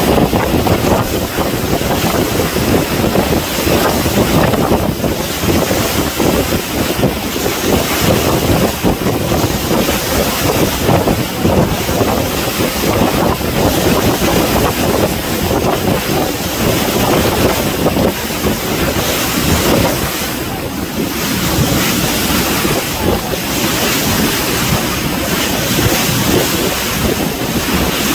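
Wind blowing hard on the microphone over the rush of the sea, a loud, steady, fluttering noise with no distinct engine tone.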